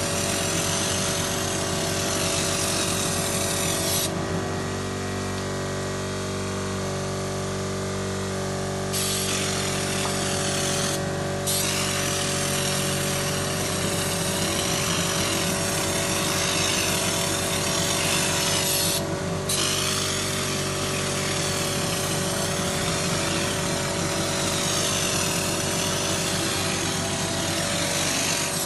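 Stone Hammer TX-450 texture-spraying machine running with its compressor: a steady motor hum under the loud hiss of air spraying texture from the gun. The hiss stops for about five seconds near the start and cuts out briefly twice more while the hum carries on.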